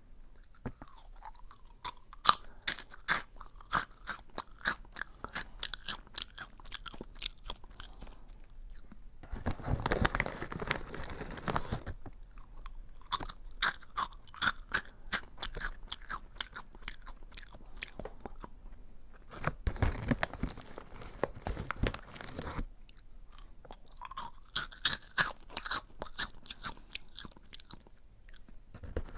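Close-up chewing of Aji Curry, a crunchy curry-flavoured snack: three spells of quick, crisp crunching chews, with a couple of short stretches of softer, rushing noise between them.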